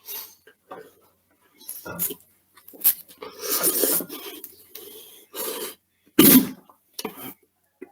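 A person coughing and hacking in irregular fits, short harsh bursts with a longer rasping one near the middle, brought on by choking on fiery-hot spicy ramen noodles.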